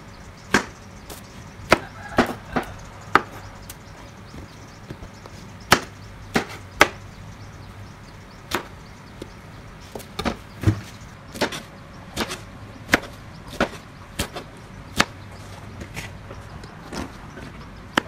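A kitchen knife chopping long beans on a plastic cutting board: sharp, irregular knocks of the blade hitting the board, roughly one a second and sometimes two in quick succession.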